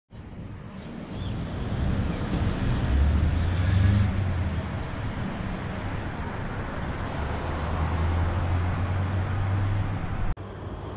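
City road traffic: a steady wash of road noise with a low engine hum that swells twice as vehicles pass, broken briefly near the end.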